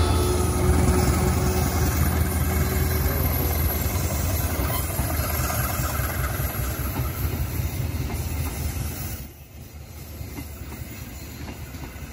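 A train rolling past, a heavy low rumble with rail and wagon noise that slowly fades, then drops off sharply about nine seconds in.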